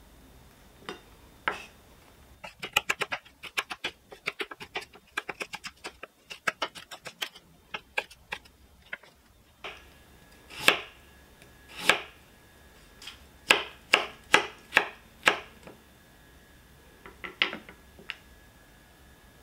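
Chef's knife cutting vegetables on a wooden cutting board. First come quick runs of light knocks, several a second, then about seven louder single cuts through a peeled carrot, each ending as the blade strikes the board, and a few light taps near the end.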